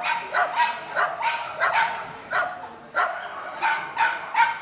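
A dog barking over and over in short, high barks, about two to three a second.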